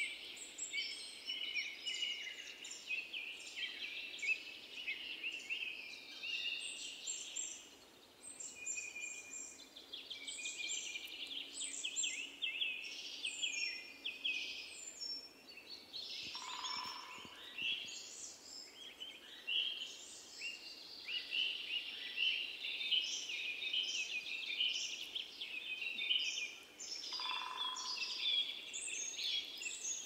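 Small birds chirping and calling all through, a dense, busy mix of short high chirps. Twice, about halfway and again near the end, a short lower-pitched sound stands out.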